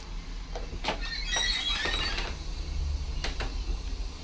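Steady low hum inside a stationary New Routemaster bus, with a few light knocks and a brief high squeak about a second and a half in.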